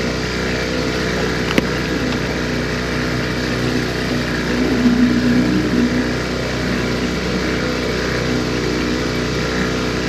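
Boat motor running steadily at low speed, with a single sharp knock about one and a half seconds in.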